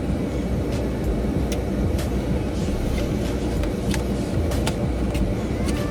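Steady low rumble of a car heard from inside its cabin, with a few light clicks scattered through.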